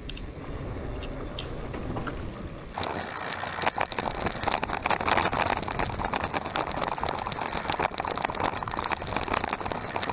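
Mountain bike rolling over a dry dirt trail: knobby tyres crunching on dirt and gravel with a dense rattle of small clicks and knocks. Quieter at first, then much louder and harsher from about three seconds in.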